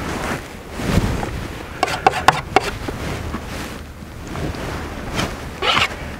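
Wind rumbling on the microphone, with a few short clicks about two seconds in and a scratchy scrape near the end as painting tools work thick paint on a painting board.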